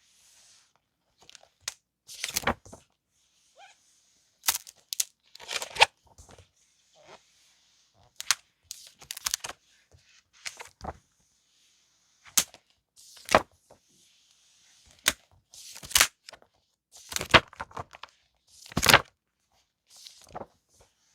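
Paper stationery and its packaging being handled up close: rustling and crinkling, broken by a series of sharp snaps and taps about one or two a second, the loudest near the end.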